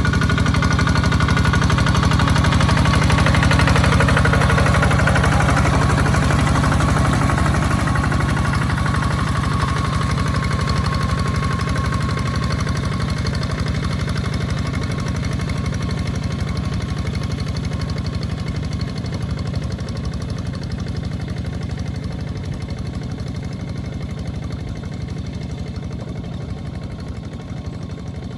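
Two-wheel walking tractor's diesel engine running steadily with an even clatter while pulling a plow through a wet rice field, growing gradually fainter over the second half.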